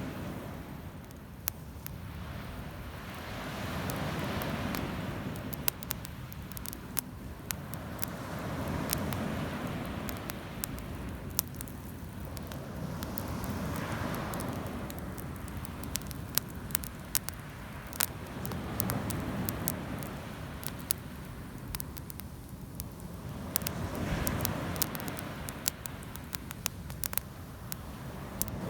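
Campfire crackling with many sharp pops and snaps, over the wash of sea waves that swell and recede about every four to five seconds.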